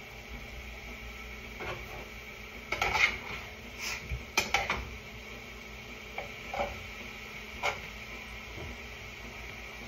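A utensil stirring and scraping food in a saucepan on the stove, with a few sharp knocks against the pot. The busiest spell is a little under a second to about two seconds long, from nearly three seconds in, and a couple of single knocks follow. A steady faint high whine runs underneath.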